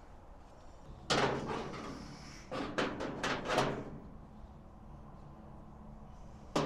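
Sheet-metal parts of a Dyna-Glo vertical smoker clanking during assembly. A sudden clank about a second in trails into a rattle of about a second, followed by about five sharp knocks in quick succession and one more knock near the end.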